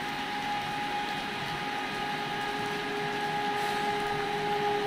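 Horn of an approaching express train's locomotive, held as one long steady note that slowly grows louder over a low rumble.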